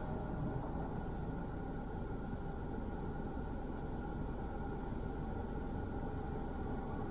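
Steady low rumble of a car stopped in traffic with its engine idling, heard from inside the cabin.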